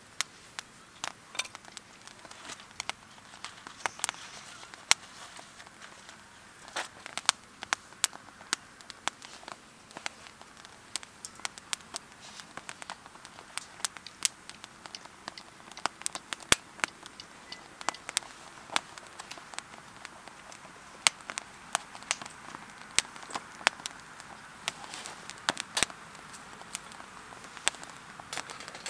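Wood campfire crackling: irregular sharp pops and snaps over a faint hiss.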